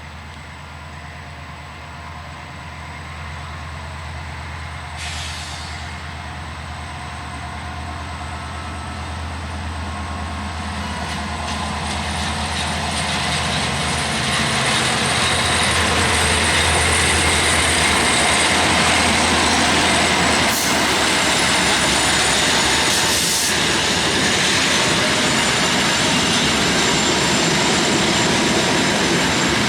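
GM diesel-electric locomotive running, its low engine hum steady at first, then a train noise that grows much louder over about fifteen seconds and stays loud as the locomotive and passenger coaches draw close.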